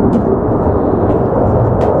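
Military jet flying overhead: a loud, steady rumble of jet engine noise.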